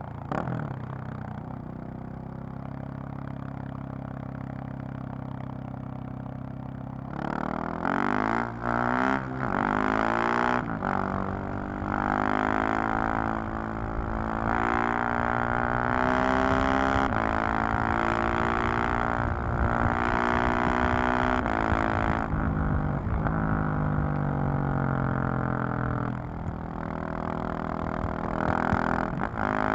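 KTM 690 SMC-R's single-cylinder engine and exhaust under way. It runs at a steady, lower pitch for about seven seconds, then the revs climb and fall repeatedly, with short breaks at gear changes and a dip in pitch a few seconds before the end.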